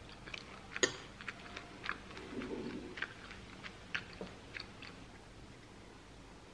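Mouthful of crunchy muesli being chewed, a string of small crunches and clicks, with a metal spoon clinking against the bowl; the sharpest click comes about a second in, and the crunching stops about a second before the end.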